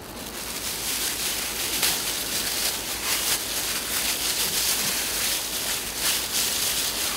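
Thin plastic bag crinkling and rustling as hands squeeze and knead the meat inside it, a dense run of small crackles.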